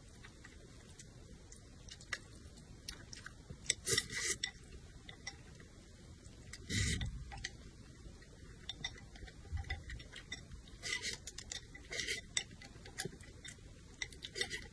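Close-up eating sounds of a person slurping and chewing noodles: wet mouth clicks and smacks with a few short, louder slurps, the strongest about seven seconds in.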